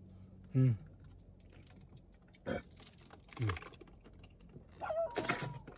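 A man's short, light coughs, two of them a few seconds apart, with small clicks and handling knocks between and a brief squeak near the end. It is the occasional small cough with phlegm of a lingering cold.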